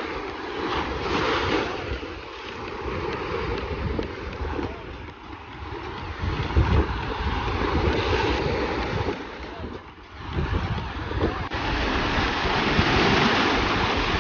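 Steady rush of water, with wind buffeting the microphone in gusts.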